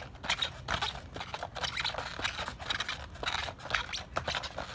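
Bare feet hopping and landing on a skateboard deck, scraping against the grip tape in a string of irregular short scuffs as the legs cross back and forth.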